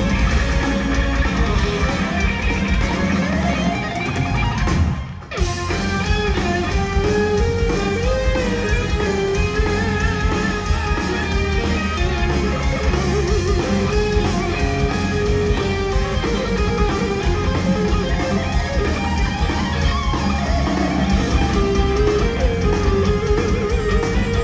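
Live heavy metal band playing loudly: electric guitar carries a melody with vibrato over drums, bass and keyboards. The sound drops out briefly about five seconds in.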